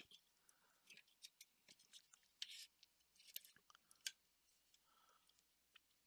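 Faint, scattered clicks and scrapes of a power-supply cooling fan being worked loose by hand from its metal PSU housing, with the loudest ticks in the second half.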